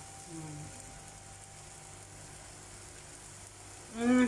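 Faint, steady sizzling of sliced bitter melon and egg frying in a pan, with no stirring. A voice cuts in near the end.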